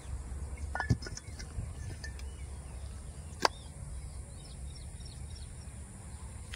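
Outdoor ambience: a steady low rumble with faint bird chirps, and two sharp clicks, about one second and three and a half seconds in.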